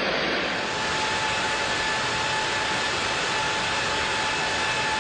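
GE90-115B turbofan jet engine running steadily on an outdoor test stand: a continuous rushing noise with several steady high whining tones over it.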